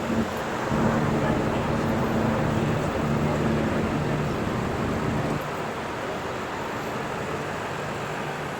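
City street traffic noise with a vehicle engine running nearby, a steady low hum that drops away about five seconds in.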